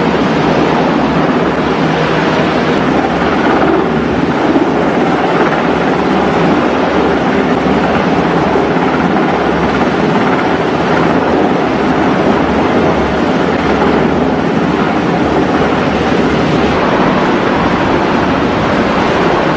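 Steady rushing noise of wind and churning sea along a ship's side during underway replenishment, with gusty wind buffeting the microphone.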